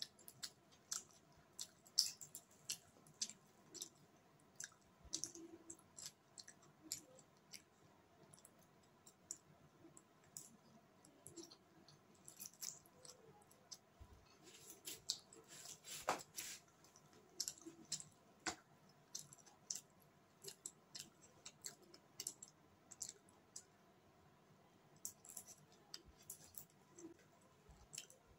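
Faint close-up eating sounds: chowmein noodles being chewed, with many short irregular wet mouth clicks, a few a second. A sharper click stands out about sixteen seconds in, and another a couple of seconds later.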